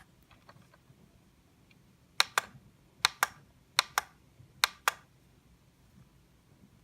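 Four pairs of sharp mechanical clicks, the two clicks of each pair about a fifth of a second apart, from switches being flicked on a Jumper T12 RC radio transmitter; a few faint ticks come before them.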